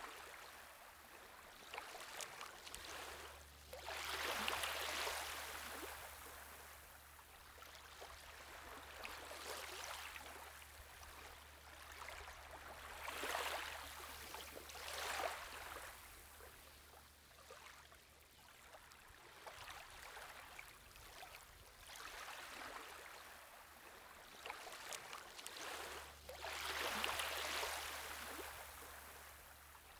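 Shallow water running over a pebbly bed, swelling and easing every few seconds. A low steady hum lies underneath and drops out briefly near the end.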